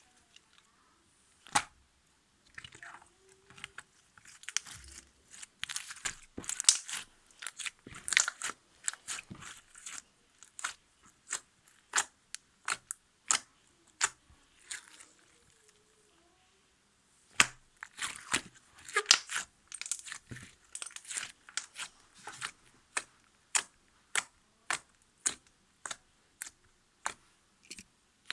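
Slime being pressed and squeezed by hand, giving sharp crackling clicks and pops, in dense stretches of crackle and then single pops about once a second near the end.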